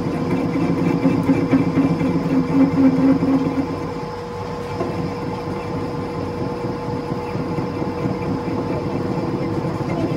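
Belt-driven engine lathe running, its four-jaw chuck spinning with a steady hum and a constant whine. It is louder and rougher for the first four seconds, then settles quieter.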